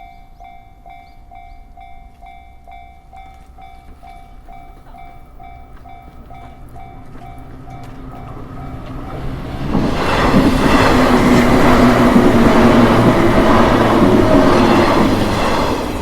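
Japanese level-crossing alarm ringing in a steady, regularly pulsing electronic tone. About ten seconds in, a train passes through the crossing. Its noise swells to become much the loudest sound and then falls away near the end.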